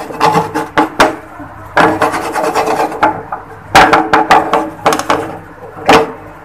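Rough scraping or rubbing in several bursts, each about a second long, with gaps between them and a faint steady hum underneath.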